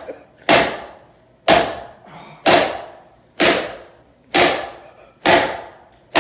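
A stick striking hard and repeatedly, about one knock a second, each with a short fading ring.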